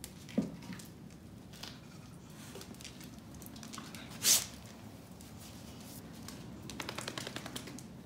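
Wood fire crackling in an open stone hearth, with scattered pops and ticks. A thump comes just after the start, a short loud hiss about four seconds in, and a quick run of clicks near the end.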